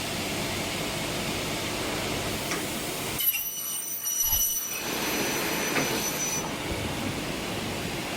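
CNC double-head mitre saw running through a cut on aluminium profile: a steady rushing machine noise, with a high-pitched whine of several tones for about three seconds a little before the middle.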